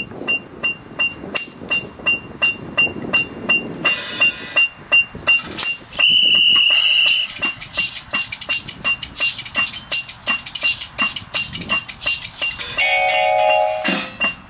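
Front-ensemble marimbas and vibraphones played with mallets in a quick rhythmic passage, over the evenly spaced high beeps of an electronic metronome at about three a second. One beep is held for about a second around the middle, and a sustained chord sounds near the end.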